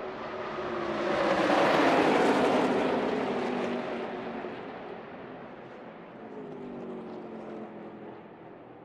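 A pack of NASCAR Truck Series V8 race trucks passing at full speed. The engine noise swells to a loud peak about two seconds in and fades as they go by, then a second, smaller group passes near the end.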